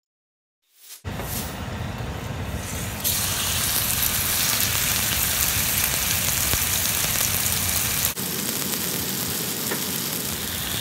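Raw chicken breasts sizzling in hot oil in a skillet: a steady frying hiss that starts about a second in and gets louder about three seconds in.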